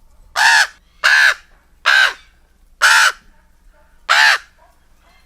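A bird giving five short, loud calls, about one a second, each rising and then falling in pitch.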